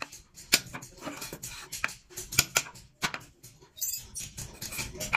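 Hammer tapping a steel carving chisel into wood: about six sharp taps at irregular intervals as the chisel cuts a scalloped border. A brief jingle sounds about four seconds in.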